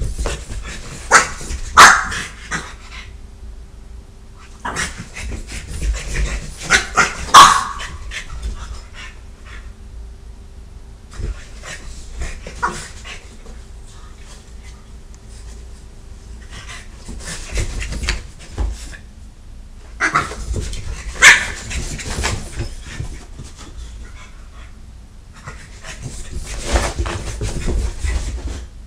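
Dogs barking in about six short bouts, with quieter stretches between them; a French bulldog is going after a Catahoula.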